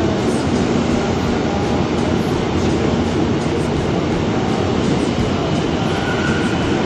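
High-speed passenger train running past a station platform: a loud, steady rumble.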